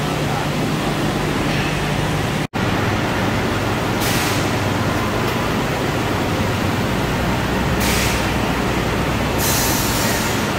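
Loud, steady din of factory machinery with a low hum underneath. Short hisses come about four, eight and ten seconds in, and the sound cuts out for an instant about two and a half seconds in.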